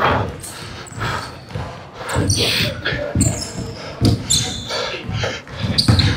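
A basketball being dribbled and bounced on a hardwood court, with a dull thud every half-second or so, echoing in a large gym hall. Sneakers give short, high squeaks on the floor.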